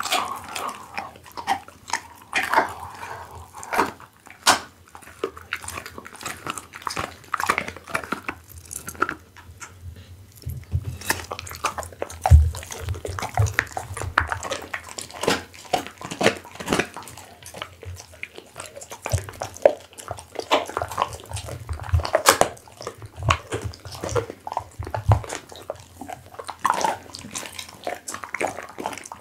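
Pit bull chewing raw beef close to the microphone: a dense, irregular run of wet smacking and biting sounds, with a few heavier low thumps through the middle.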